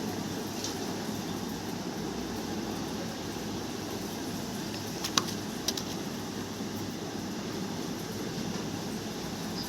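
Steady low rumbling background noise, with two sharp clicks about half a second apart a little past the middle.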